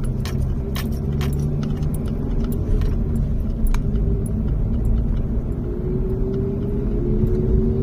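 Low road rumble of a moving car heard from inside the cabin, with scattered light clicking and rattling. Near the end a droning tone comes in and slowly rises.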